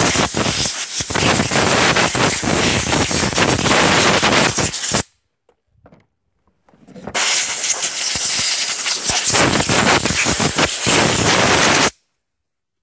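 Compressed-air blow gun hissing in two long blasts of about five seconds each, with a pause of about two seconds between, blowing oil-soaked sawdust off a chainsaw.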